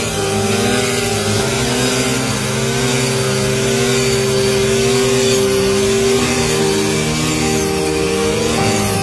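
A backpack-mounted small petrol engine drives a shaft-driven rice reaper (brush-cutter type) while it cuts standing paddy. It runs continuously, and its pitch rises and falls about once a second as the cutter swings through the rice under varying load.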